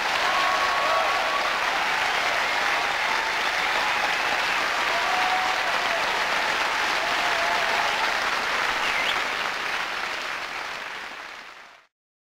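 Large theatre audience applauding, a dense steady clapping after a song, fading out just before the end.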